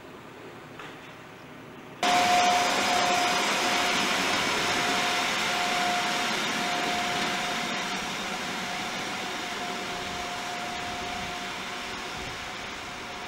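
Passenger train hauled by an electric locomotive pulling away: a steady rushing noise with a thin steady whine, starting abruptly about two seconds in and slowly fading as the train draws off. Before it, only a faint background.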